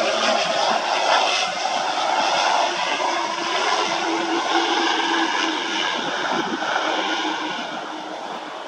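Twin turboprop engines of a Beechcraft King Air running steadily as it touches down and rolls along the runway, easing off near the end.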